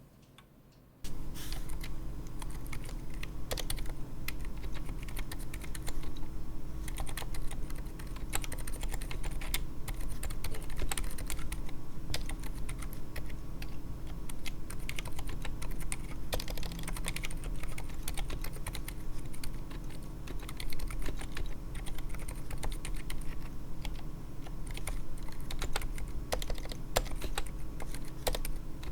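Fast continuous typing on a 60% mechanical keyboard in a resin case, fitted with stock, unlubed Durock Daybreak Silent linear switches (67 g) and XDA-profile PBT keycaps, with the keyboard resting on a mousepad. The typing starts about a second in.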